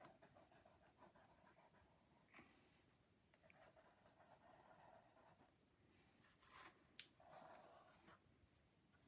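Faint scratching of a pen drawing on notebook paper, in short strokes with pauses, and a single sharp tick about seven seconds in.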